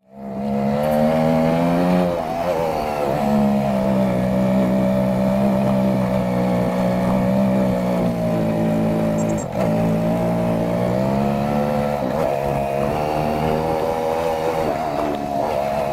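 Small Yamaha motorbike's single-cylinder engine running steadily under way, its note dipping briefly and picking back up several times as the rider eases and reopens the throttle, with road and wind noise.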